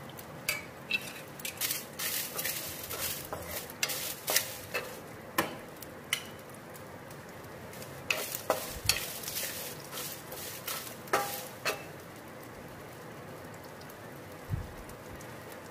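Onions, sesame seeds and dried red chillies sizzling steadily in hot oil in a non-stick kadhai, with a wooden spatula clicking and scraping against the pan as they are stirred. The stirring stops about twelve seconds in, leaving the sizzle alone.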